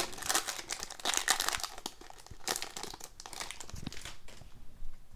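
Foil wrapper of a hockey card pack crinkling and tearing as it is ripped open and peeled back, in several bursts that die away near the end.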